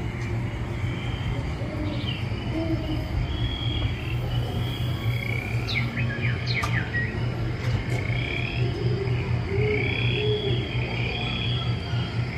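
Dark-ride show soundtrack playing a recorded nature soundscape: bird chirps and short gliding calls with low frog-like croaks over a steady low hum and soft music.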